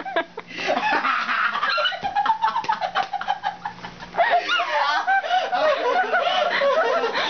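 High-pitched, hysterical laughter: squealing, cackling voices in two long fits, broken by a short breath about four seconds in.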